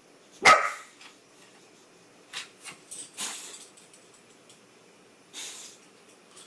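A dog barks once, loudly, about half a second in, followed by several shorter, sharper noises over the next few seconds.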